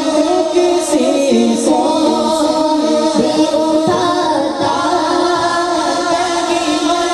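A boy's voice singing a naat, an Urdu devotional poem, into a microphone over a public-address sound system, holding long notes without instruments; a new phrase begins about four seconds in.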